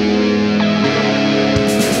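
Post-punk band playing an instrumental passage: electric guitar over held keyboard tones, with drum and cymbal hits coming in near the end.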